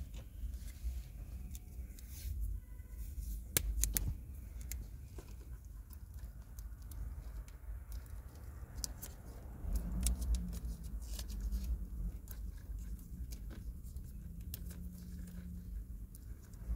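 Hands working on a cut car wiring harness: scattered small clicks and rustles of wires being handled and separated, with a couple of sharper clicks about four seconds in, over a low rumble of handling.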